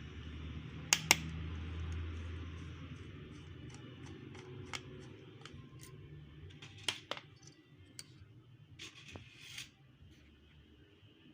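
Small clicks and taps of tools and parts handled while a Dell XPS 13 7390 laptop is taken apart, over a low steady hum. Two sharp clicks come about a second in, then scattered lighter clicks, with a quick pair near the middle.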